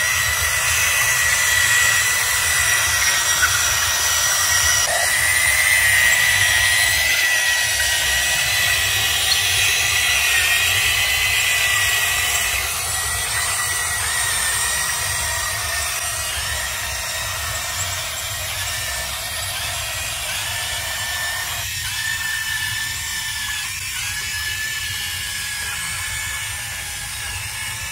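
Electric hydraulic pump of a Huina 580 RC excavator running with a steady high whine over a hiss; it gets a little quieter about halfway through.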